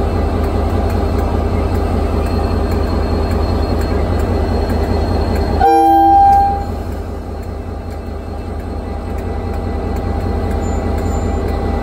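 KiwiRail diesel-electric locomotive idling with a steady low engine rumble. About six seconds in it sounds one short blast of its multi-tone horn, lasting about a second.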